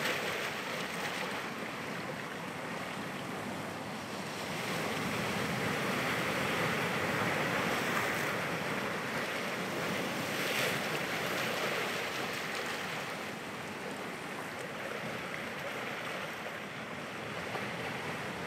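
Sea surf washing onto a rocky shore: a steady rush of noise that swells for several seconds in the middle and then eases.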